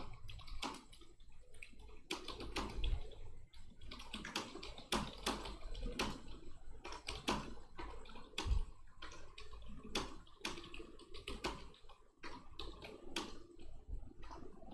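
Computer keyboard keys clattering in quick, irregular strokes: continuous touch-typing of running text for a timed typing-speed test.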